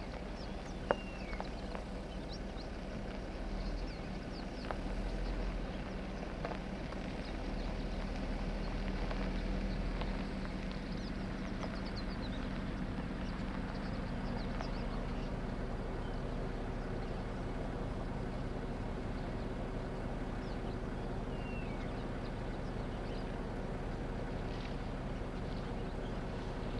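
Steady low hum of an idling vehicle engine, with a few short bird chirps over it and a single sharp click about a second in.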